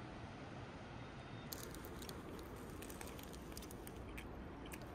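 Faint steady background noise with a scatter of light crackling clicks starting about a second and a half in, from paper food packaging being handled.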